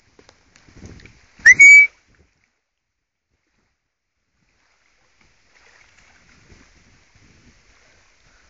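A single short, loud whistle from the handler to the swimming dog, rising in pitch and then held briefly, about a second and a half in.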